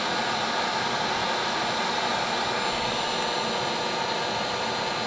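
Gas torch flame hissing steadily, preheating hardened steel hay rake tines before welding.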